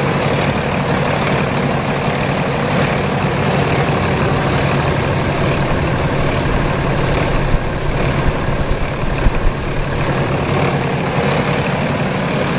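Freightliner M2 106 truck's diesel engine idling steadily, heard up close in the open engine bay. A few brief clicks come through about two-thirds of the way in.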